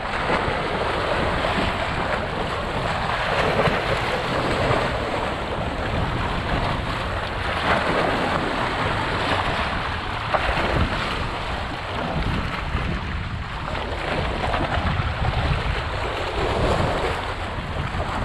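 Sea waves washing and splashing over the rocks at the water's edge, swelling up in repeated surges every few seconds, with wind buffeting the microphone.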